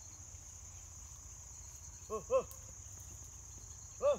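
A steady, high-pitched insect drone over the scrub, broken by three short calls: two in quick succession about two seconds in and a third near the end.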